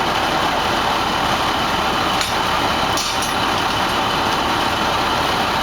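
The drain-cleaning crew's engine-driven pump running steadily, a constant mechanical drone with a couple of faint ticks partway through.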